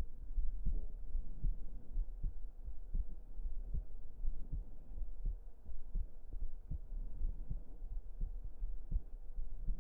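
Human heartbeat picked up close against the chest: a steady low thump about every three-quarters of a second, over a constant low rumble.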